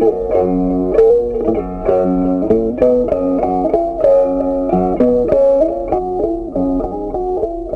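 Background music: a melody on a plucked string instrument, with notes changing every fraction of a second at a steady level.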